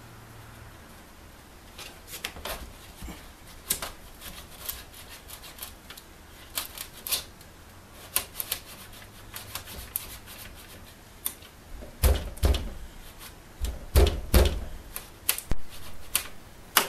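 Chisel tapping and picking at wooden window trim to dig out the heads of nails: irregular sharp taps and clicks, with a cluster of heavier knocks about twelve seconds in.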